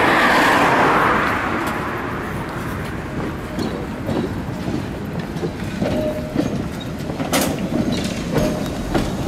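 Tram wheels running on street rails, loudest in the first second or so, then a Tatra tram coming along the track with a few sharp clacks as its wheels cross rail joints.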